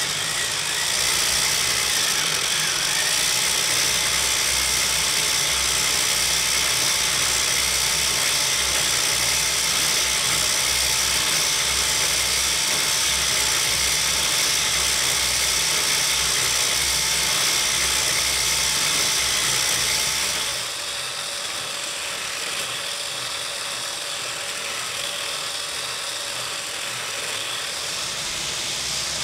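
Motor-driven 3D-printed circular knitting machine running steadily, a continuous mechanical whir with a low hum. About two-thirds of the way through the sound becomes quieter and the low hum drops away.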